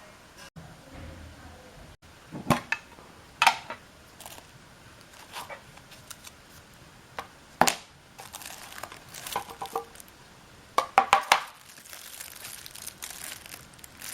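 Unboxing a watch's packaging by hand: paper and plastic crinkling and rustling, broken by several sharp clicks and knocks as the box and its contents are handled.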